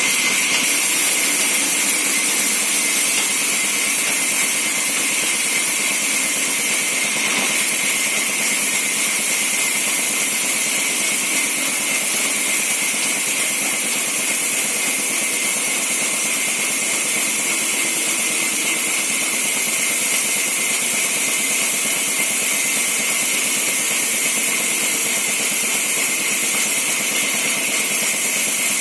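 24-inch araa (sawmill saw) machine running: a steady, high-pitched noise with no breaks.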